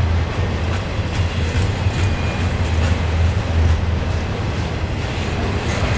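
Double-stack intermodal container cars of a long freight train rolling past close by: a steady low rumble with irregular clicks and clacks from the wheels on the rails.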